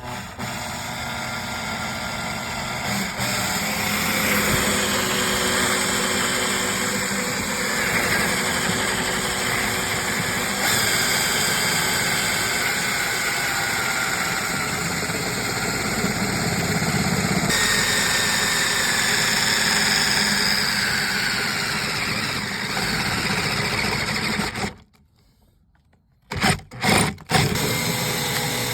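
A handheld electric power tool running under load, its motor whine slowly sagging in pitch. Near the end it stops for a moment, then comes back in a few short blips of the trigger before running on.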